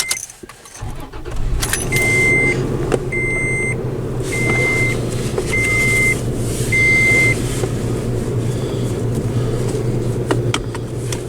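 A car engine starts about a second in and runs steadily, while a vehicle warning chime beeps five times at an even pace, each beep a single high tone a little over half a second long.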